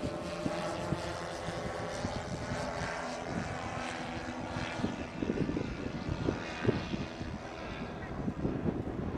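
Model engines of a 1/10-scale radio-controlled B-17 bomber running steadily in flight, with wind gusts rumbling on the microphone.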